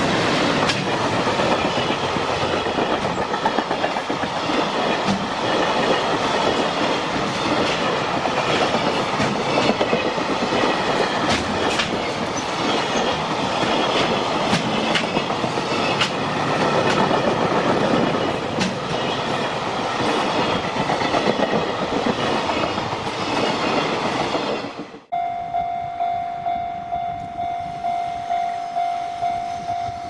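Container freight wagons rolling past close by, their wheels clattering over the rail joints in a loud, steady rush. About 25 seconds in it breaks off suddenly and a level-crossing warning bell rings in an even pulse, roughly one and a half strikes a second.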